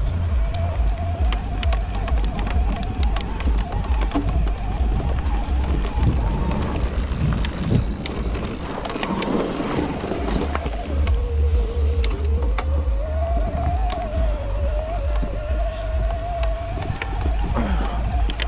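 Electric mountain bike ridden over a rough trail: wind buffeting the microphone, the motor's whine wavering with speed, dipping about two thirds of the way in and climbing back, and the bike clattering over bumps.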